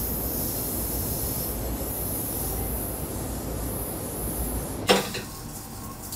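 Steady street noise: a low rumble under a high hiss. About five seconds in it breaks off with a sharp knock, and the quieter sound of a restaurant kitchen follows.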